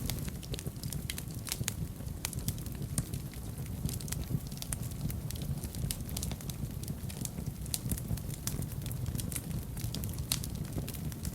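Fire burning in a fireplace, crackling with frequent sharp, irregular pops over a steady low rumble.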